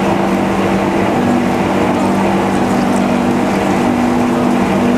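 Stand mixer running at low speed: a steady motor hum as its dough hook turns through flour in a steel bowl.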